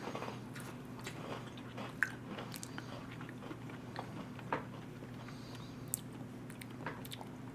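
A person biting into and chewing a caramel apple Oreo cookie: a few faint, scattered crunches, over a low, steady hum.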